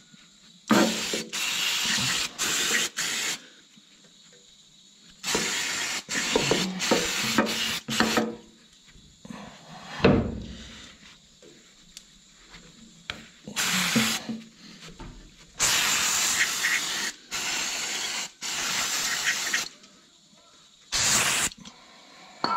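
Hissing spray in repeated bursts of one to four seconds each, starting and stopping sharply, as dirty tractor gearbox parts are sprayed clean. Short knocks and metal clatter come between the bursts, the sharpest one about halfway through.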